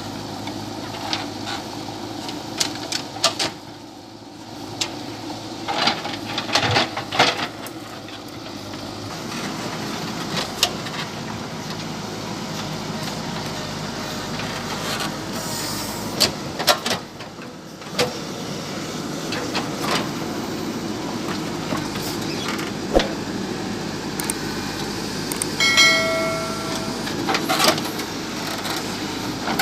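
JCB 3DX backhoe loader's diesel engine running steadily, with repeated sharp clanks and knocks from the working machine scattered throughout. A short horn-like tone sounds a few seconds before the end.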